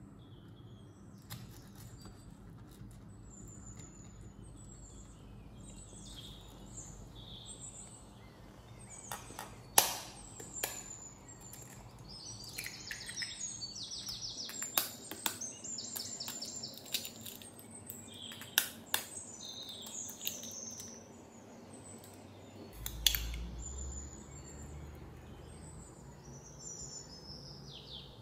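Small birds chirping and trilling in the background, busiest in the middle. A few sharp knocks and taps from kitchen work stand out as the loudest sounds, one with a dull thud about two-thirds of the way in.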